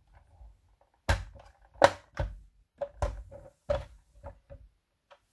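Plastic Playmobil toy pieces being handled and set down: a string of irregular light clicks and knocks.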